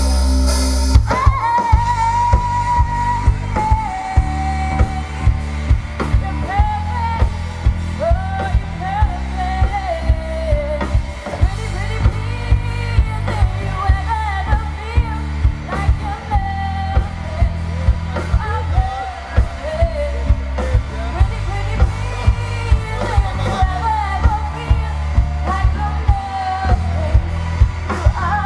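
Live rock band with drum kit, bass and a female singer, playing a pop-rock ballad; the vocal holds long notes over a steady beat.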